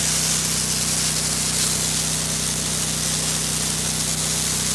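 Bleach roof-wash mix spraying from a gas roof pump's spray handle onto roof shingles, a steady hiss, over the steady hum of the pump's small gas engine.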